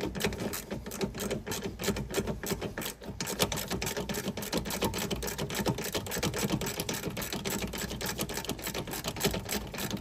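Ratchet wrench clicking rapidly and steadily as it backs out the T50 Torx bolt that holds the seat-belt retractor.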